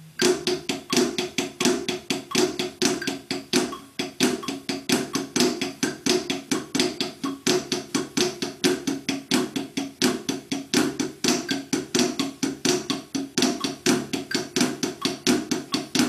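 Drumsticks playing the Swiss Army triplet rudiment on a practice pad set on a drum at 85 beats a minute: a steady, even stream of triplet strokes with flams, moving between right-hand-lead and left-hand-lead groups.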